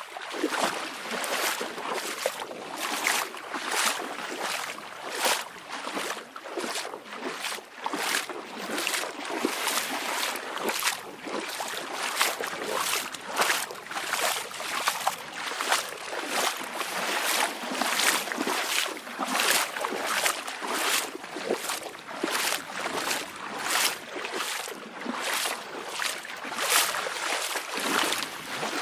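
Small waves lapping and splashing at the water's edge: a quick, uneven run of splashes, roughly two a second, with little deep rumble.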